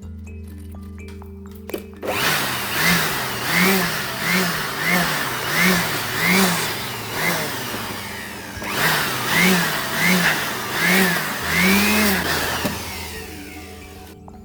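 A small motor repeatedly speeding up and slowing down, a rising-and-falling whine about eleven times in a row with a short pause near the middle, over background music.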